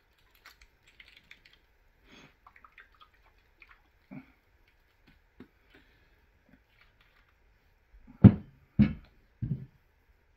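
Small glass bottle of thick green jalapeño hot sauce being shaken and handled, with faint clicks and rustles, then its cap unscrewed. Three loud, short thumps about half a second apart come near the end.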